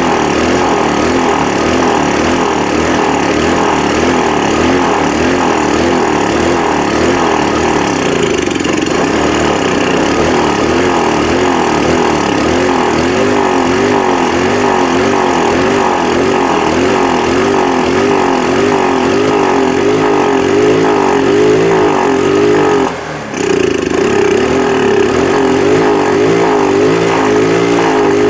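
Electric starter cranking a 150cc GY6 scooter engine that does not catch, the engine having sat dead for about two years. The cranking runs on with a steady pulsing, broken once for a moment about three-quarters of the way through.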